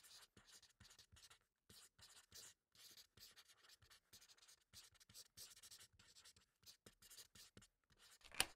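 Faint pencil writing on paper: a run of short, irregular scratchy strokes, with one sharper tick near the end.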